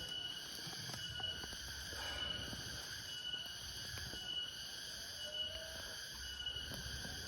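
Tropical forest insects calling in a steady chorus, with a high note that pulses about every second and a bit, and scattered faint ticks.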